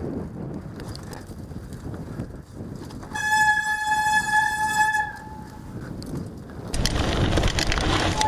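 Mountain bike brake squealing: a loud, steady squeal held at one pitch for about two seconds, starting about three seconds in. Under it runs the rumble of tyres on a dirt trail, which turns into a loud rough rattle near the end.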